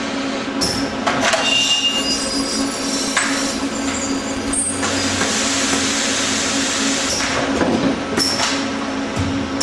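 Multi-head ultrasonic spot welding machine for car dashboard parts working under a steady hum, with repeated hisses of compressed air from its pneumatic heads and short high squeals as the welding horns press on the plastic.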